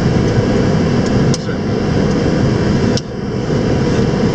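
Steady cockpit noise inside an Antonov An-225 Mriya: a dense low rumble of engines and airflow. Two sharp clicks come about one and a half and three seconds in, each followed by a brief dip in the noise.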